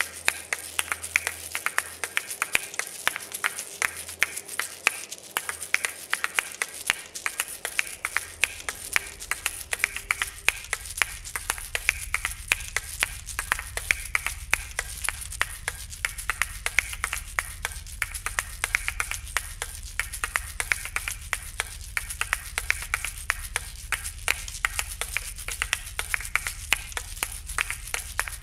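Soundtrack of dense, rapid clicks, many a second at an even level, like a crackling percussive pattern. A faint low hum comes in about a quarter of the way through.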